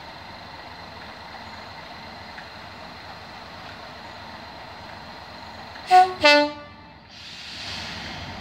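British Rail diesel locomotives idling with a steady hum. About six seconds in, a two-tone locomotive horn sounds: a short high note, then a longer lower note, followed by a hiss.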